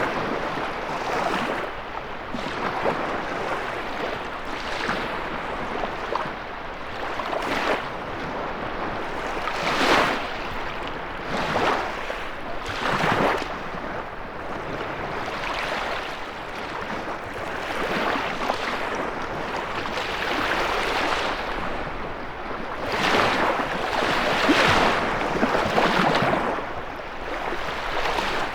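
Lake Michigan waves breaking and washing against the shore, with wind blowing. The wash swells and falls in irregular surges every few seconds over a steady rush.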